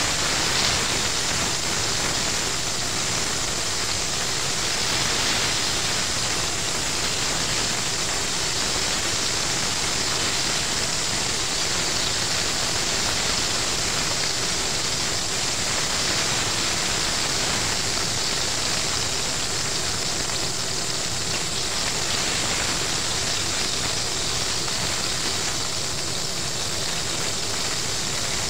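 Battered chicken pieces deep-frying in hot oil in a pot: a steady, even sizzle.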